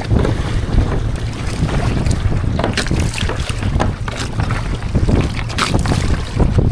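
Strong wind buffeting the microphone aboard a Hobie Adventure Island sail kayak under way, with irregular splashes of water against the hull.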